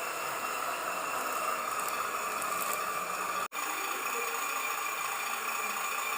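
Steady whir and whine of a radio-controlled model vehicle's small electric motor and gears running, broken by a sudden split-second cut a little past halfway.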